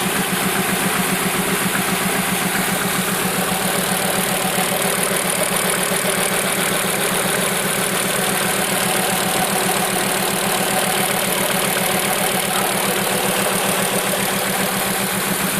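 Fiat Marea 2.4's five-cylinder engine idling steadily with a fast, even rhythmic noise running through it. The owner calls it a strange noise that seems to come from the cam phaser (variable valve timing) or the manifold.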